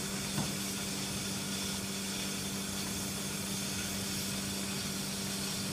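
Steady plant hum with a constant hiss from a steam-trap test rig: the heater battery's fan running while a venturi orifice steam trap discharges condensate and flash steam into a metal bucket.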